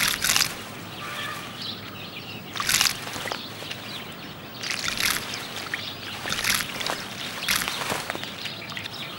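House sparrow bathing in a shallow puddle, splashing and fluttering its wet feathers in short bursts every second or two.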